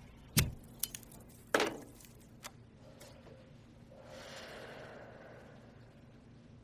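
A few short, sharp clicks in the first few seconds, then a faint rushing hiss that swells and fades away.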